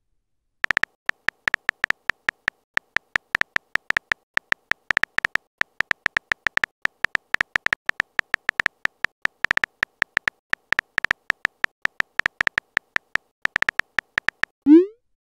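Texting-app keyboard sound effects: a short, sharp tap for each letter typed, several a second in an uneven rhythm. Near the end the tapping stops and a quick rising whoosh marks the message being sent.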